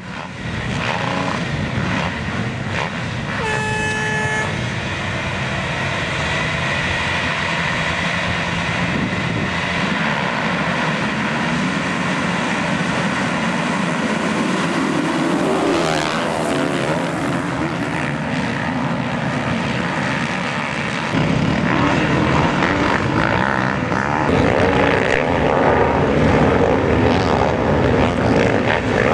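Many motocross bike engines running hard together as a pack races over the dirt track, the engine note rising and falling with the throttle. A brief steady tone sounds about four seconds in, and the engine noise gets louder about three quarters of the way through.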